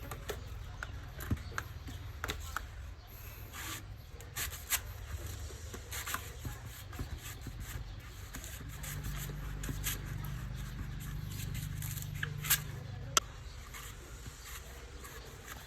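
Knife cutting and scraping a coconut: irregular scrapes and sharp ticks, with two louder knocks close together near the end.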